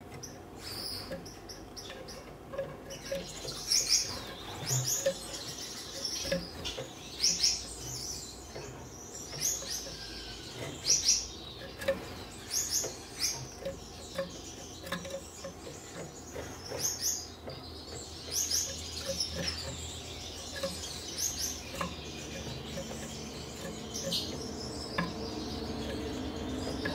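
Gouldian finches chirping: short high calls repeated irregularly, often two or three in quick succession.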